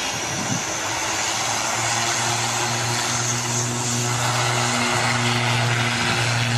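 An engine running steadily: a low, even hum that settles in about a second and a half in, under a rushing hiss.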